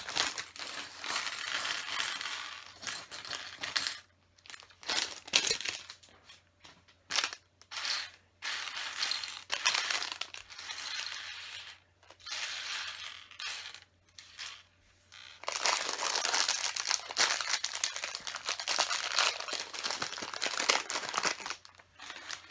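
Thin plastic bags crinkling and small LEGO pieces clattering as bags of little pieces are handled and tipped out, in bursts with short pauses, then a longer unbroken stretch of crinkling and rattling in the second half.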